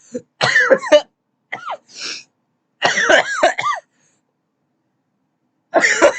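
A person coughing in four bouts, each a quick run of short, harsh coughs, with a pause of nearly two seconds before the last bout. A crunchy, chesty cough from an illness that the person hopes is only allergies.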